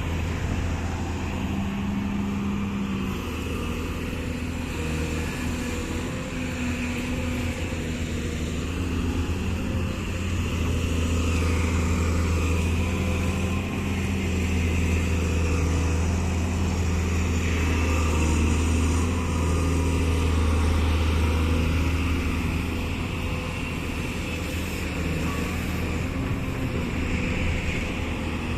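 Excavator's diesel engine running steadily under work, with a deep continuous hum that grows somewhat louder through the middle stretch.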